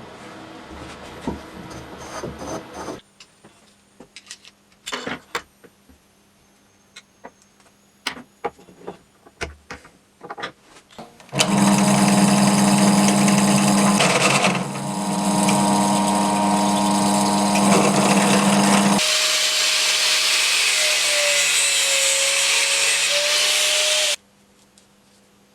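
Scattered light knocks and clicks of parts being handled, then a power tool running loudly for about seven seconds, shifting to a hissier, higher sound for about five more seconds before it cuts off suddenly near the end.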